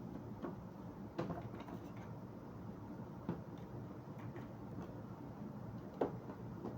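Faint, scattered plastic clicks and ticks as the bottom cover of an HP 14s laptop is pried loose from its snap clips. A sharper click comes about a second in, with another near the end.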